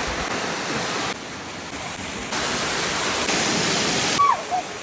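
Steady rushing noise that changes level abruptly a few times, as short outdoor clips are cut together, with a brief falling chirp near the end.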